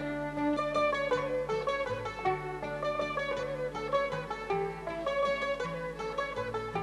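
Instrumental music: plucked strings play a quick melody over a line of bass notes.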